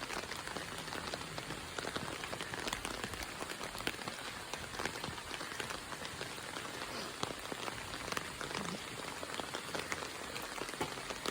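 Steady rain, with many separate drops ticking sharply, as if striking the umbrella held over the microphone.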